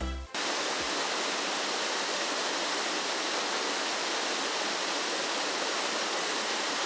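Steady rush of a mountain creek's water pouring over rocks in a small waterfall. A music track cuts off just at the start.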